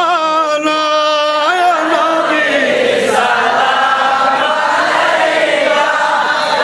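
Urdu devotional song (naat) sung at a religious gathering: a man's voice holds a long, wavering note, and about two seconds in many voices take it up, chanting together as a group.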